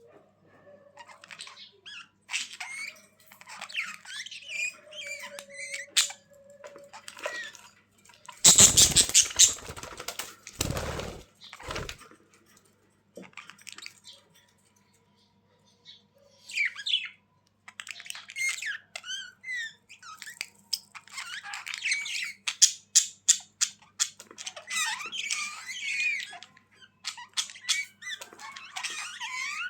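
Budgerigars chirping, warbling and squawking in bursts, with a loud rush of noise about eight seconds in and a short lull in the middle.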